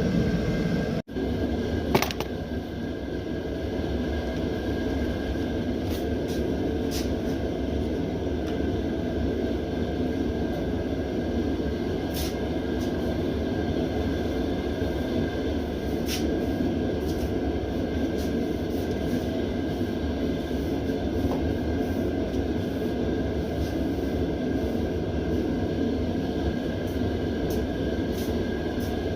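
Mr. Heater propane heater running, a steady rushing rumble of its burner, with a short dropout and a knock about two seconds in and a few faint ticks.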